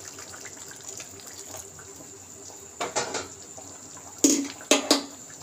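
Water poured from a steel bowl into a pan of potato curry, a steady splashing pour, followed in the second half by a few sharp metal clinks against the pan.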